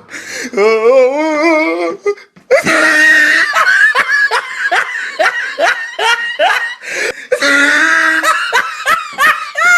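Loud, hearty laughter: a wobbling, drawn-out vocal sound, then a long run of rapid, high-pitched "ha" bursts repeating about twice a second.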